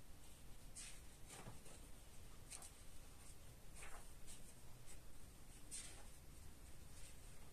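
Faint, brief swishes of a paintbrush laying strokes of paint on paper, a handful of them at irregular intervals.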